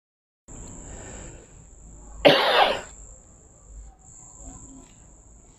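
One loud cough from a man about two seconds in, over a steady high-pitched trill of crickets.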